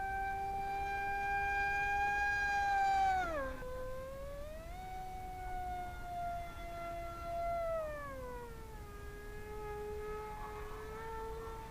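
Electric motor and propeller of an AtomRC Bat delta-wing RC plane whining in flight. The pitch drops sharply about three seconds in and rises back, then sinks slowly and creeps up again near the end.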